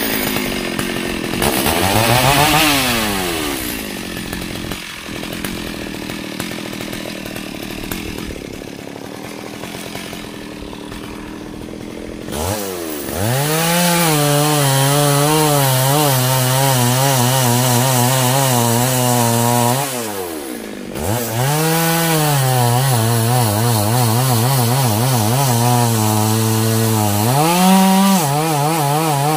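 Stihl MS 382 two-stroke chainsaw comes in suddenly and revs up briefly, then runs lower for several seconds. From about twelve seconds in it is held at high revs, with a wavering pitch as the chain works through wood. The throttle is let off briefly twice, near twenty seconds and again near the end.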